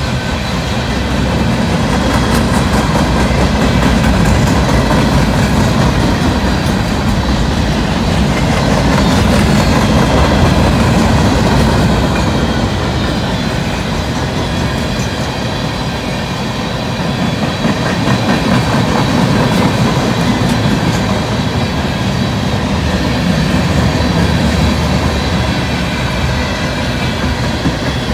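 Freight train cars passing close by at speed: steady clatter of steel wheels on the rails, with several thin, high, steady tones ringing over it.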